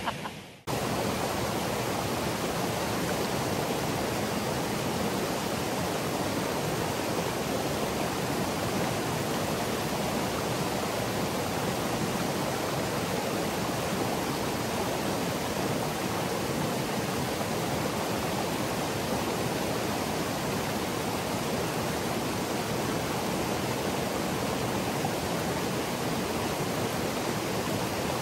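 Small mountain creek rushing and splashing over rocks in a steady, even rush of water.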